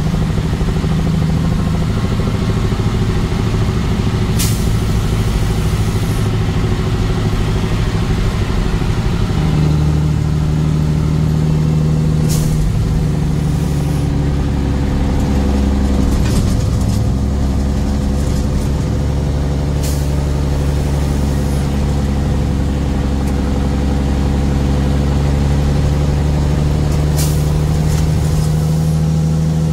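Motor vehicle engine and road noise while driving: a steady hum whose pitch shifts a couple of times, with a few sharp knocks scattered through.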